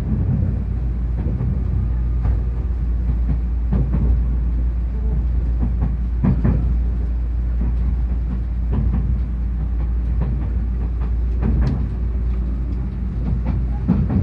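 Inside a Tobu 500 series Revaty limited-express electric train at speed: a steady low rumble of running noise, broken every few seconds by paired clacks as the bogies' wheels cross rail joints.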